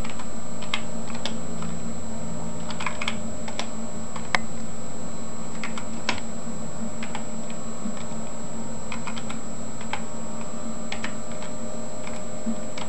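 Computer keyboard being typed on in short, irregular runs of keystrokes while logging in and entering a shell command. A steady hum lies underneath, and one louder click comes about four seconds in.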